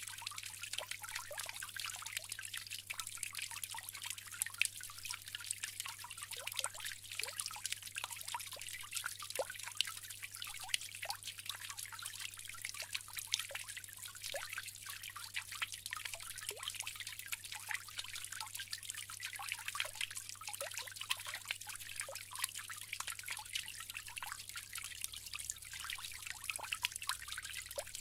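Water trickling steadily from a bamboo fountain into its basin: a constant splashing patter with many small plinking drops.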